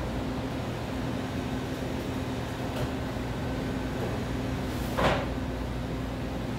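Steady low hum of a commercial kitchen's exhaust hood ventilation, with a short rush of noise about five seconds in.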